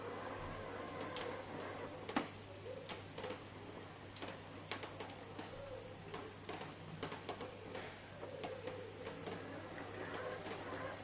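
Husqvarna Automower 310 robotic lawn mower running quietly over grass: a low steady hum with scattered irregular ticks, and a bird calling faintly.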